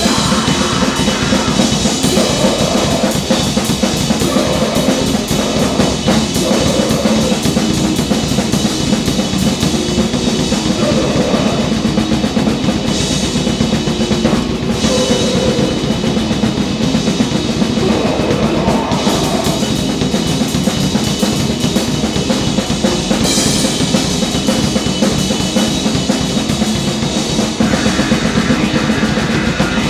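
Grind/noise band session playing loud and without a break: a drum kit hammering rapid strokes under a dense wall of noise.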